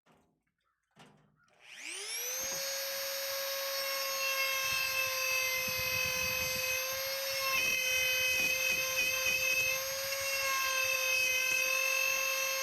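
A power carving tool's small electric motor spins up about two seconds in, its whine rising fast and then holding at a steady high pitch while it cuts grooves into wood, with rougher grinding noise under the whine at times.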